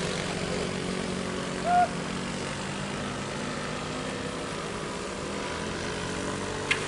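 Steady engine drone of vehicles climbing a steep hairpin under load, the nearest a Mitsubishi L300 pickup with a box truck behind it. A brief shout comes about two seconds in, and a sharp click near the end.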